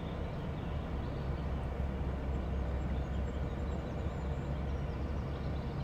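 Outdoor background noise: a steady low rumble, with faint high chirps.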